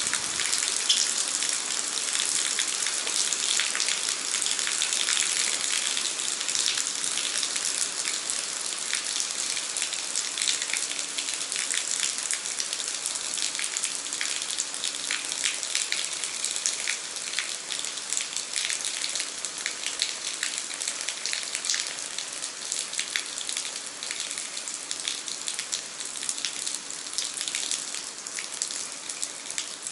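Steady heavy rain, a dense hiss of drops splashing onto surfaces with many small individual drop ticks.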